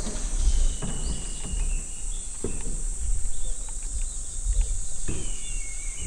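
Steady high-pitched drone of summer insects, over a low rumble. A few short bird chirps come near the start and again about five seconds in.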